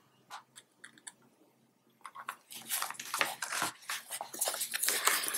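Sheets of paper rustling and crackling as the pages of a stitched notebook are lifted and handled, starting about two seconds in after a few faint ticks.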